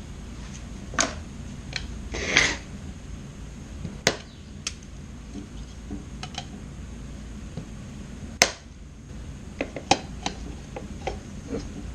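Hand trimming of parts to fit a replacement car door speaker: scattered sharp clicks and snaps, with a short scraping cut about two seconds in.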